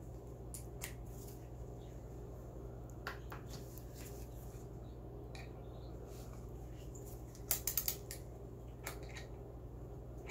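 Screwdriver backing the screws out of the butt plate on a wooden shotgun stock: scattered small clicks and scrapes of the driver and screws. The loudest is a quick run of about four sharp clicks about seven and a half seconds in. A steady low hum runs underneath.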